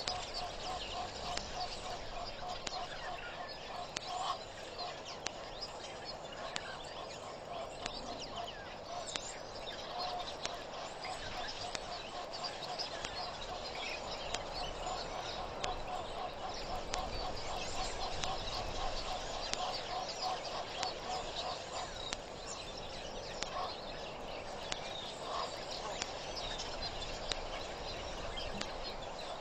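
Wild birds calling: a long run of rapidly repeated notes, strongest in the first ten seconds, with fainter high chirps over it and a steady outdoor background.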